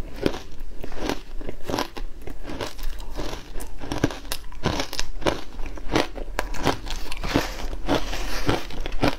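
Frozen matcha ice being bitten and chewed: a steady run of hard, crackly crunches, about two to three a second.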